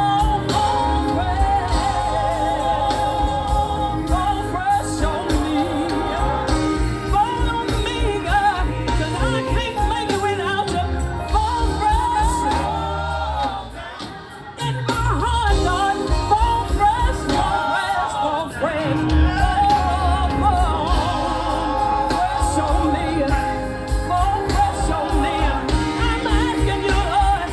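Live gospel music: singing with vibrato over a band with bass and a steady beat. The music drops back briefly about halfway through, then comes back in.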